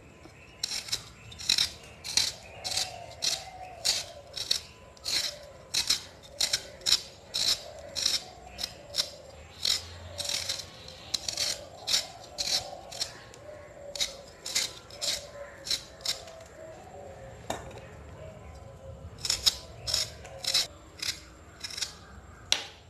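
A raw potato being peeled by hand, the blade scraping strips of skin off in quick repeated strokes, about two a second, with a short lull partway through.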